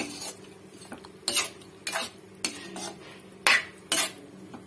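A metal spoon stirring chicken gravy in a stainless-steel pan, scraping and clinking against the pan about six times, with a steady low hum underneath.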